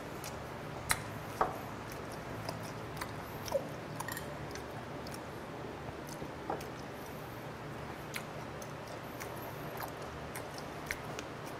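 A person chewing raw yellow stingray sashimi up close: wet mouth sounds with scattered sharp little clicks, over a steady low hum.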